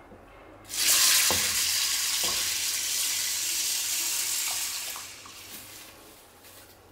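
Water poured from a stainless steel pot onto dried red beans in a stainless steel pot, splashing steadily for about four seconds and then tapering off.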